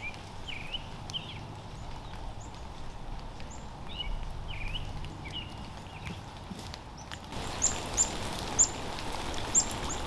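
Small songbirds chirping over a steady outdoor background. The first half has a few short two-note chirps; about seven seconds in the background changes and sharper, higher chirps come about once a second.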